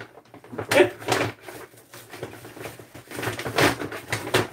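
A brown paper grocery bag being handled and opened, its paper crinkling and rustling in irregular bursts, with a cluster about a second in and a busier run near the end.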